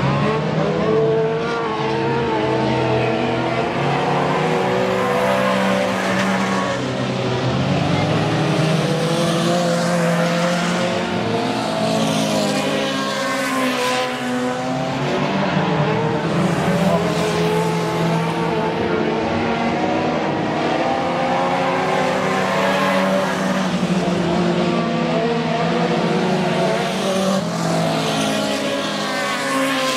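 Several dirt-track race car engines running together as the cars circle the oval and pass close by, their pitch rising and falling as each goes past.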